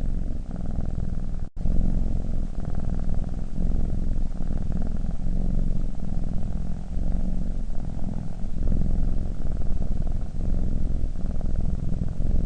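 Domestic cat purring: a continuous low rumble, briefly cutting out about one and a half seconds in.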